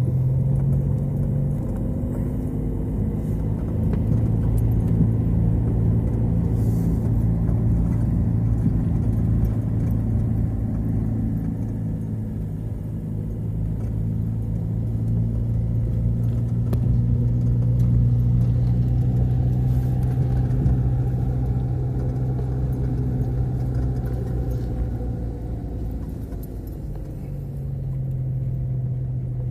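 Car engine and road noise while driving, a steady engine note that drops in pitch about two seconds in and rises again near the end.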